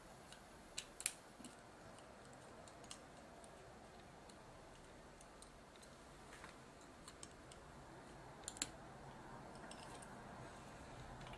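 Scattered faint metallic clicks and ticks of small screws and a small screwdriver against the metal chassis of a camcorder tape mechanism as the drum motor is screwed down, over near silence. The clicks come irregularly, the sharpest about one second in and a close pair near the end.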